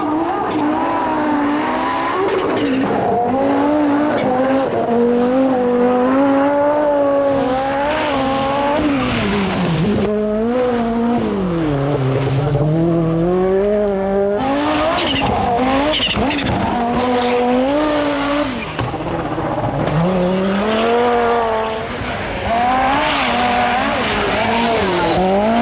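Group B rally car engines at full throttle on gravel stages. The engine pitch climbs and falls again and again through gear changes and lifts, and the sound changes abruptly a few times as one pass gives way to the next.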